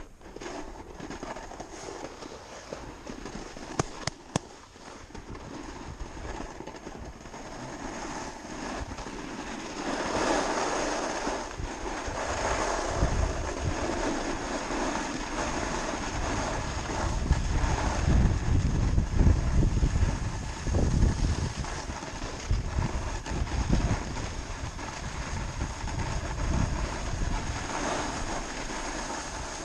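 Rushing outdoor noise with wind buffeting the microphone in low gusts, growing louder about ten seconds in, with a couple of sharp clicks near four seconds.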